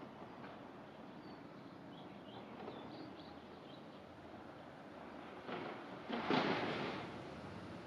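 Faint, short, high peeps from common gull chicks a couple of seconds in, then a louder rush of noise with no pitch that lasts about a second near the end.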